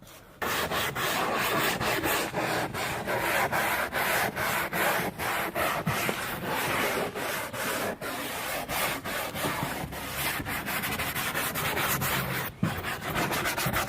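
Fast, repeated rubbing strokes scrubbing the surface of a car headliner board, stripping the rotten foam backing to get it ready for paint.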